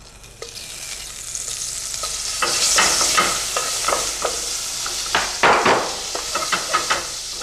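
Butter melting and sizzling in a hot pot. It is pushed around with a wooden spatula that taps and scrapes the pan. The sizzle builds over the first couple of seconds, and the spatula clicks come thick from the middle on, the loudest a little past halfway.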